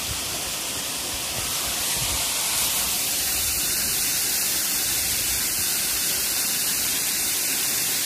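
Steady rushing of a waterfall, an even hiss of falling water with no rhythm, a little louder from about two seconds in.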